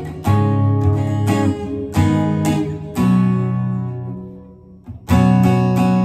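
Outro music of strummed acoustic guitar chords. One chord rings and fades away in the middle, and the strumming picks up again about five seconds in.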